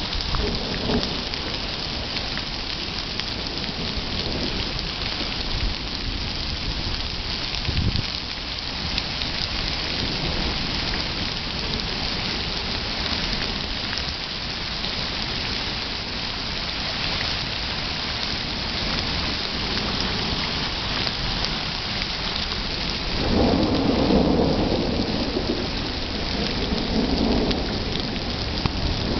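Hailstorm: hail and heavy rain falling steadily on lawn and pavement, a dense continuous hiss of impacts. A louder low rumble comes near the end.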